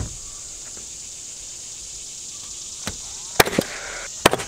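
A nail gun driving nails into plywood roof sheathing. It fires in two quick pairs of sharp shots in the last second and a half, after a fainter knock.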